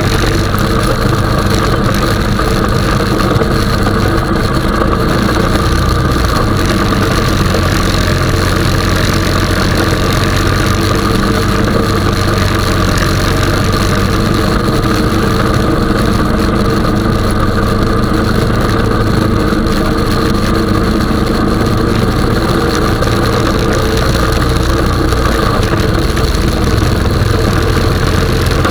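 Honda 420 ATV's single-cylinder four-stroke engine running steadily, a continuous engine hum with no change in speed.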